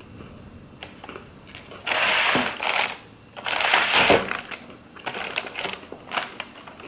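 Close-miked bite into a crunchy veggie burger: two loud crackly crunches, about two and three and a half seconds in, followed by softer crackling chews.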